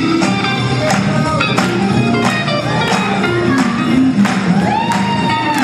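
Swing jazz music with a steady beat, ending in a long held note that scoops up in pitch near the end.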